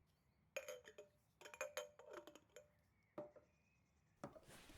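Dishes and glassware clinking lightly in a few clusters of taps with short ringing tones, as an emptied breakfast plate and juice glass are gathered up. A soft rustling hiss starts near the end.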